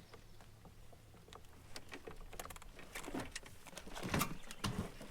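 Irregular splashes and knocks from a channel catfish being pulled in on a jug line. They grow busier and louder from about three seconds in.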